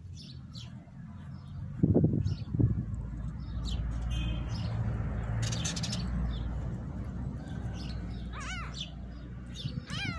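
Small birds chirping on and off, with two dull bumps about two seconds in. Near the end, two short, thin, arched mews from newborn kittens.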